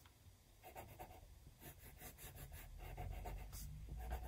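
Pencil scratching on paper in a series of short strokes as a small shape is drawn. A faint low rumble builds in the second half.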